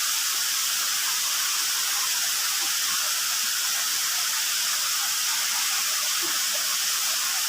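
Rushing water of a waterfall: a steady, even hiss of falling water that does not change.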